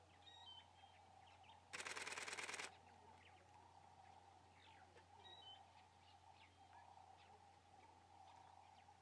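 A camera shutter fires a rapid burst of frames for about a second, the loudest sound here, over near-silent surroundings. A bird gives a faint two-note chirp twice.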